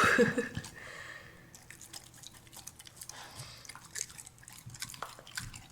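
Dog eating raw meat and buckwheat from its bowl: short, irregular chewing and licking clicks.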